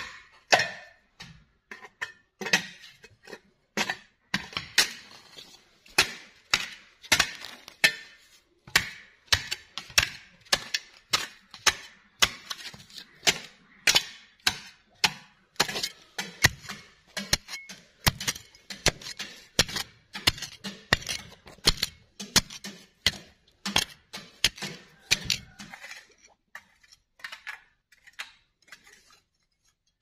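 Hand hoe chopping and scraping into packed earth in steady repeated strokes, about two a second, stopping a few seconds before the end.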